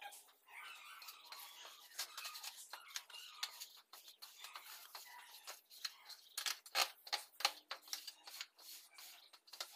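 Long straight-edge scraped back and forth across a damp sand-cement mortar floor bed as it is screeded level: repeated gritty scraping strokes, a couple of them sharper about six and a half to seven seconds in.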